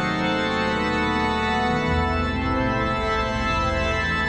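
Pipe organ playing slow sustained chords, the chord changing about two seconds in as a deep bass note enters.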